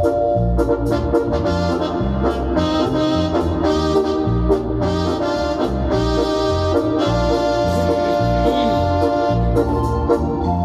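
Instrumental backing music: held chords over a bass line and a steady beat, with no singing yet.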